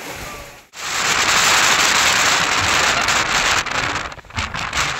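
Heavy rain pouring, a loud steady hiss that starts suddenly after a short gap near the beginning and turns choppy and uneven near the end.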